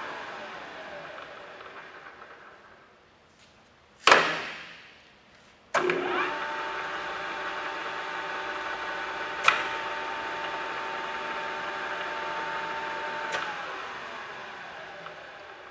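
Kingston HL4000 engine lathe headstock: the spindle gear whine falls away as it coasts to a stop, then comes a loud metallic clunk. The spindle starts up sharply and runs with a steady gear whine. After a click about 13 seconds in it coasts down again, the whine falling in pitch.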